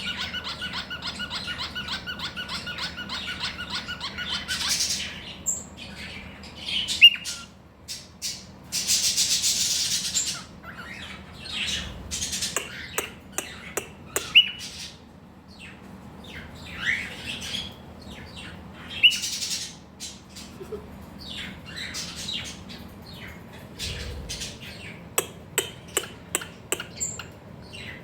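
A cockatiel calling: a rapid pulsed warble at first, then scattered short chirps, whistles and squawks, with a run of sharp clicks near the end.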